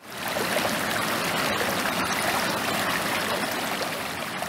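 Stream water flowing and splashing over rocks, a steady rushing that fades in at the start.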